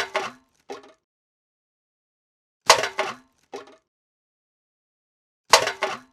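Cans thrown away one at a time, three times, each landing with a metallic clatter and then a smaller rattle as it settles.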